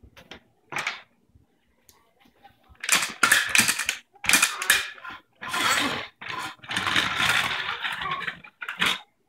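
Green plastic toy tractor pushed across a hard vinyl floor: rattling and clicking in several noisy bursts, the longest about two seconds, after a quieter first few seconds.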